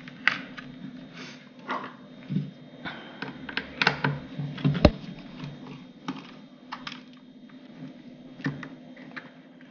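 Irregular clicks and taps of hard plastic iron-housing parts and small hand tools being handled, with one sharper knock about five seconds in.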